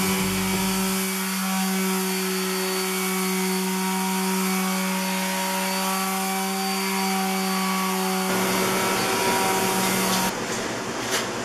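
Electric palm sheet sander running with a steady hum as it sands a laminate countertop, scuffing it ahead of priming and painting. The hum cuts off about ten seconds in, leaving a steady hiss.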